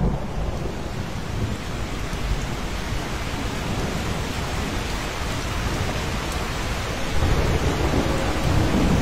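Thunderstorm: steady heavy rain with low rolling thunder, the rumble swelling about seven seconds in.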